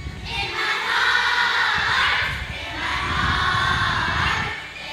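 A class of first-grade children singing together loudly in unison, in two long phrases.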